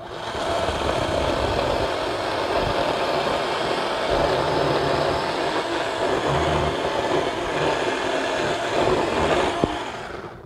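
Battery-powered 8-inch mini electric chainsaw running and cutting through green apple wood, its motor and chain going steadily. It stops near the end.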